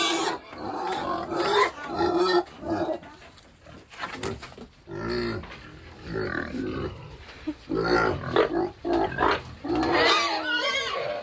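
Pigs grunting and squealing in a string of irregular calls, some high squeals near the end.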